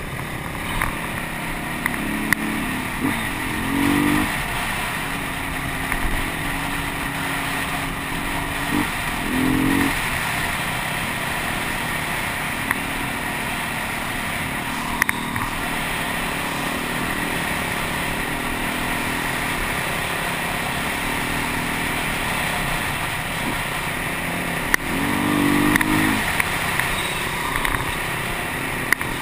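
Beta 250RR enduro motorcycle engine running under way on a dirt track, heard from the rider's helmet camera. The engine note rises in short bursts of throttle about three times, around the start, about nine seconds in and near the end, over steady wind and road noise, with a few sharp knocks from bumps.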